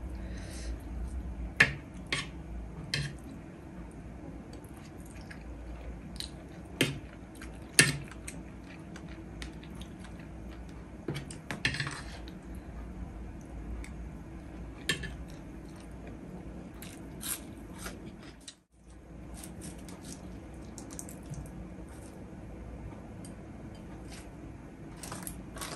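Metal spoon clinking and scraping against a ceramic plate as biryani is scooped up, in scattered sharp clicks every few seconds, with close-up chewing and biting sounds between them.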